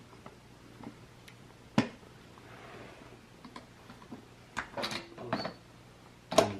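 Scattered sharp plastic clicks and knocks from baby car seat and base parts being handled. There is one loud click about two seconds in and a quick cluster of clicks about two-thirds of the way through.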